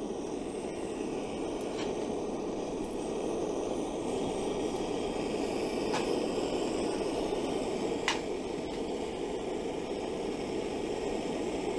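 Gas soldering iron's burner flame hissing steadily as it heats the copper gutter seam before soldering, with three faint clicks.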